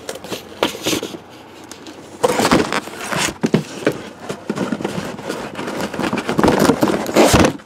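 Cardboard shipping case being tipped and shaken to dump out the boxes of trading cards inside: cardboard scraping and rustling with clunks and knocks as the boxes slide out. It gets louder and busier from about two seconds in.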